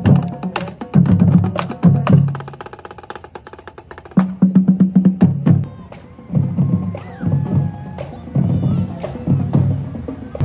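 Percussion-heavy music: heavy drum hits about once a second under sharp wood-block clicks, with a fast run of clicks a couple of seconds in.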